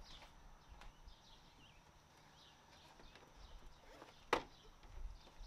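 A single sharp click about four seconds in as the plastic front bumper cover of a Hyundai Sonata is handled. Faint footsteps and faint bird chirps sound behind it.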